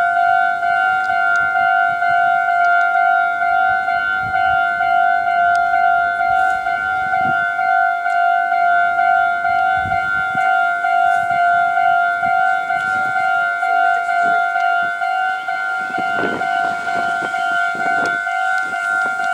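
Japanese level-crossing warning bell ringing over and over in a steady electronic two-tone pulse. In the last few seconds the rumble and clatter of a passing train joins it.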